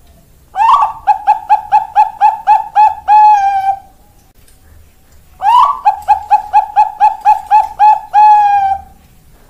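Zebra dove (Bangkok-type perkutut) singing two full song phrases. Each opens with a rising note, runs into a quick string of short staccato coos at about four a second, and ends on a longer drawn-out note.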